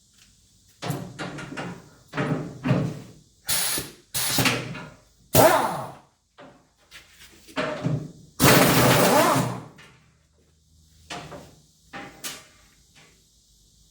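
Metal clanks, knocks and scrapes of hand tools and parts as bolts are taken out of a finish mower's spindle housing. There are a dozen or so separate clatters, with a longer, louder scrape a little past halfway.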